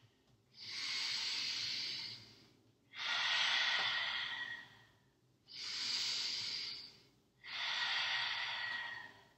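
A woman's slow, audible yoga breathing: four long, even breaths of about two seconds each, with short pauses between them.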